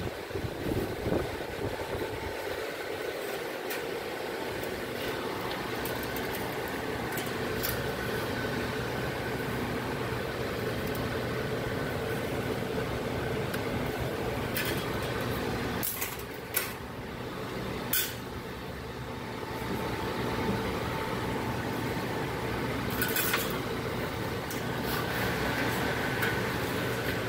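Steady machine hum, such as a shop fan or compressor running, with a handful of short sharp clicks or taps in the second half.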